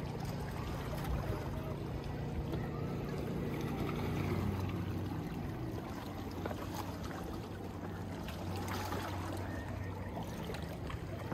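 A boat engine running with water splashing. About four seconds in, its hum drops in pitch and settles at a lower steady tone.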